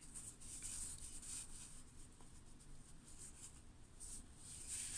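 Faint rustling and rubbing of small printed paper pieces being shifted and fanned in the hands, a little louder near the start and again near the end.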